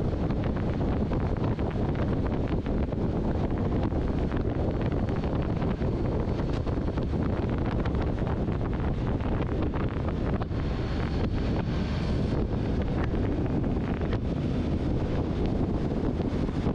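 Wind rushing over the microphone of a motorcycle riding at road speed: a steady, loud, low rumble of buffeting with the bike running beneath it.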